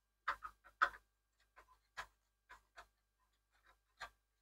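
A scatter of light, irregular clicks and taps from hand tools and small metal parts being handled, about ten in all, the loudest in the first second.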